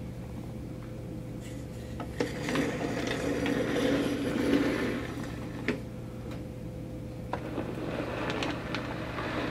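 OO gauge model passenger train running past on the track. A rolling mechanical rumble from the wheels and running gear, with a few sharp clicks over the rail joints, louder as the coaches go by about three to five seconds in and again near the end.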